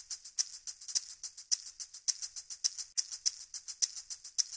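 Outro music made almost entirely of shaker percussion: a fast, even rhythm of crisp, bright hits with no bass.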